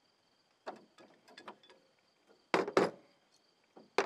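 Handling of a brake-line flaring tool: a few light metal clicks, then two louder knocks about two and a half seconds in as the red cone tool is taken off the flaring bar and set down on a plastic truck bed liner, with more clicks near the end.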